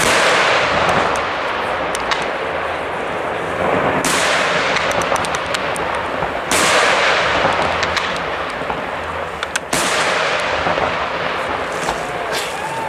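Fireworks shells bursting in the sky: four heavy booms, about 4, 2.5 and 3 seconds apart, each trailing off in a long rolling echo, with sharp crackling pops between them.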